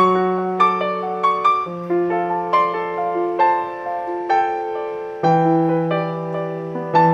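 Background piano music: a gentle melody of separate notes over held bass notes.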